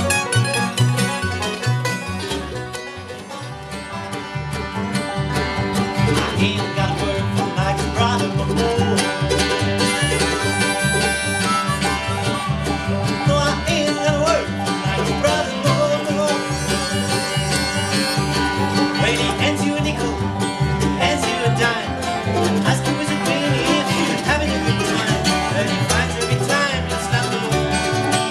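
Bluegrass band playing an instrumental break, banjo and guitar picking over a steady upright bass rhythm, with no singing.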